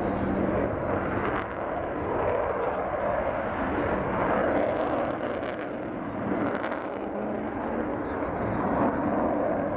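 Distant jet noise from the Avro Vulcan bomber's four Rolls-Royce Olympus turbojets as it flies its display: a steady rushing sound that swells and eases a little.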